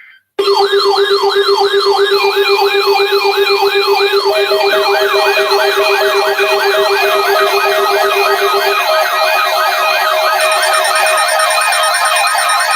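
Loud electronic siren-style alert tones that start abruptly. Several yelping sweeps repeat at about three a second, layered over steady and pulsing tones. A low steady tone drops out about nine seconds in.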